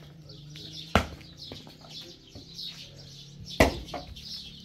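Two sharp knocks, about two and a half seconds apart, with birds chirping behind them.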